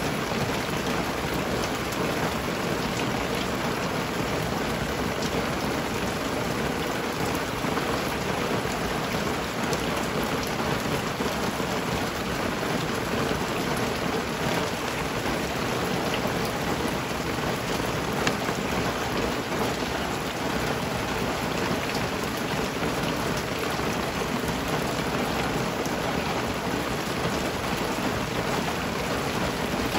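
Steady, unbroken hiss of falling water.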